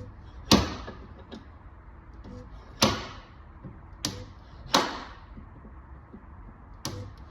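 Slide hammer of a stud-welder dent puller knocking against its stop as it pulls on a dented steel car sill: five sharp metallic knocks, irregularly a second or two apart, each with a short ringing tail. The panel is not moving any more, being solid there.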